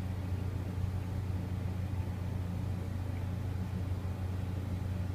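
A steady low hum with no changes and no sudden sounds.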